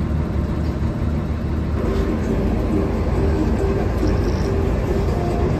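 Hino AK8 bus's diesel engine running with road noise, heard from inside the cab while driving in traffic; the low rumble grows a little louder about two seconds in.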